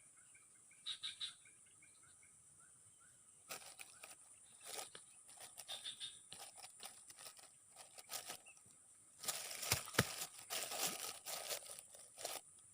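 Irregular rustling and crinkling handling noises with sharp clicks, starting about three and a half seconds in and busiest near the end. A steady high hiss runs underneath, with faint short chirps early on.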